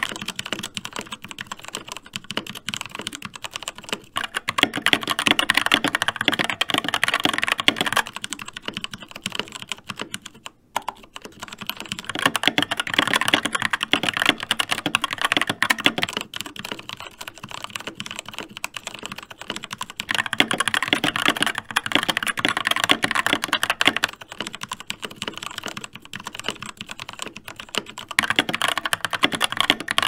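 Skyloong GK61 60% mechanical keyboard with Gateron Optical Brown tactile switches being typed on steadily: a dense stream of keystroke clacks that swells and eases every few seconds, with one brief pause about ten seconds in.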